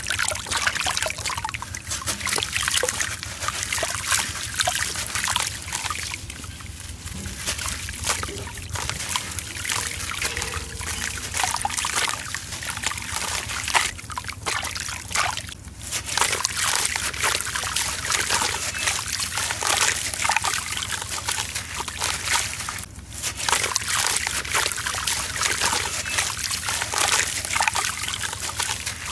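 Hands crumbling a soaked sand-and-cement (sandment) block in a tub of muddy water: gritty crumbling and crackling with water sloshing and trickling off the hands.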